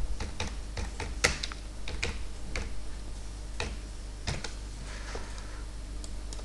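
Typing on a computer keyboard: irregular key clicks, more of them in the first half and sparser after, over a faint steady low hum.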